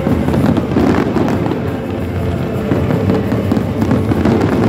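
Aerial fireworks bursting in a rapid barrage, many bangs and crackles in quick succession, with music playing underneath.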